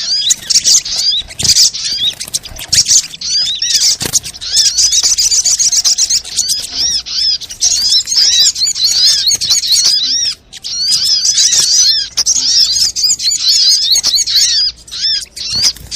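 Sogon (sogok ontong) sunbird chattering: fast, dense high chirps and twitters in quick succession, with a brief pause about ten seconds in.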